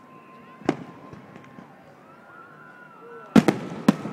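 Aerial fireworks exploding: a single bang about two-thirds of a second in, a few faint crackles, then a quick cluster of several loud bangs near the end.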